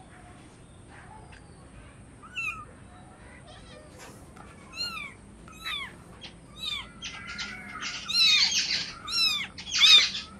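Kitten meowing over and over in short, high calls that fall in pitch, about one a second, getting louder toward the end. A brief scuffling noise comes in among the later meows.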